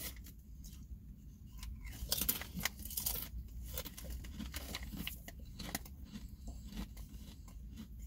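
A person chewing Ballreich's honey butter potato chips close to the microphone: irregular crisp crunches and crackles as the chips break between the teeth.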